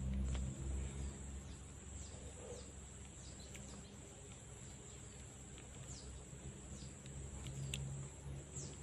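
Forest ambience: a steady high-pitched insect drone, with short falling bird chirps scattered through it, over low rumbling handling noise from the camera at the start and again near the end.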